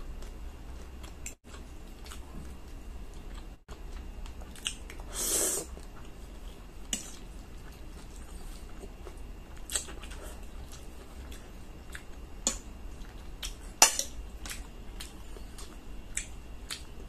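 A person eating spaghetti with a metal fork off a ceramic plate: scattered clicks and clinks of the fork on the plate, with chewing and slurping of noodles. The sharpest clink comes about three-quarters of the way through.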